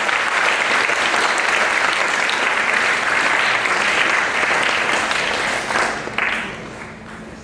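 Audience applauding steadily, then dying away about six seconds in.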